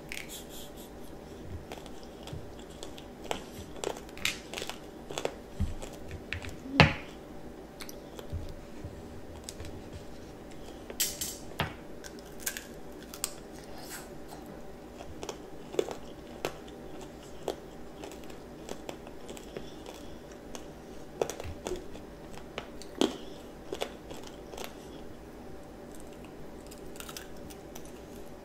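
A child chewing candied strawberries, the hard sugar coating crunching and cracking in irregular sharp clicks, the loudest crack about seven seconds in.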